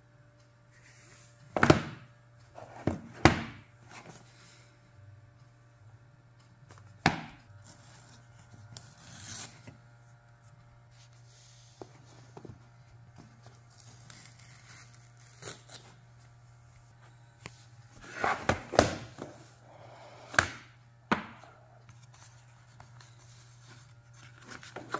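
Cardboard boxes and packaging handled and set down on a wooden table, giving scattered knocks and taps with soft rustling between them. The loudest knocks come in clusters about two seconds in and again about two-thirds of the way through, over a steady low hum.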